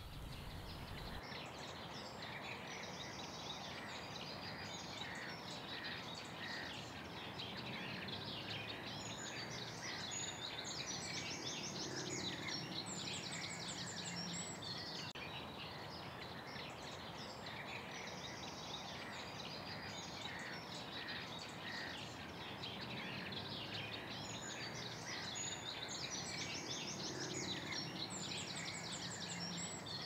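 Eurasian reed warblers singing: a dense, continuous chattering of short repeated notes over a steady background hiss.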